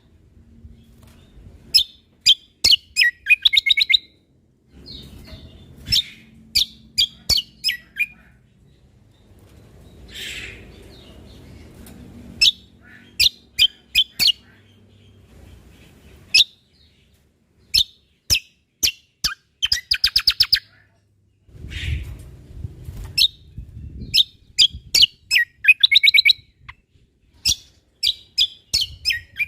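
Cucak kombo (kecial kombok) singing: loud, sharp chirps and fast rattling trills delivered in short phrases with brief pauses between them, over a faint low hum.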